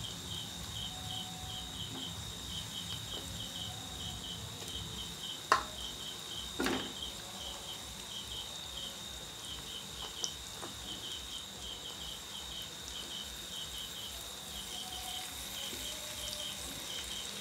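Faint cricket chirping in short, quick, evenly repeated pulses over a steady high tone, with two soft knocks about five and seven seconds in as raw chicken pieces are set into the pan.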